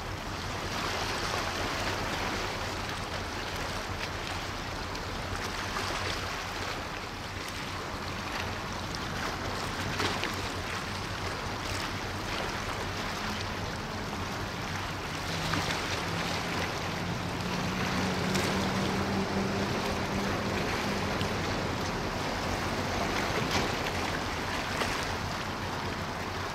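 Steady wash of water and wind with the low, even drone of a ship's engines underneath. About halfway through, a higher engine tone comes in, strengthens, then fades out several seconds later.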